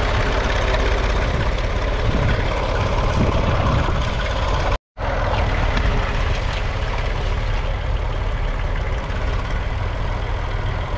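Massey Ferguson 35X's 2.5-litre three-cylinder Perkins diesel running steadily under load, pulling a two-furrow mounted plough through the soil. The sound drops out for a split second about halfway through.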